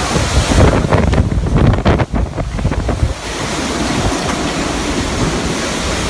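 Typhoon wind blowing hard, gusting and buffeting the microphone with a loud rush; the gusts ease into a steadier rush after about three seconds.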